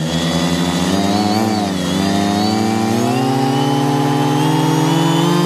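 A V-tail FPV multirotor's electric motors and propellers running with a steady hum; the pitch dips briefly about a second and a half in, then slowly creeps upward.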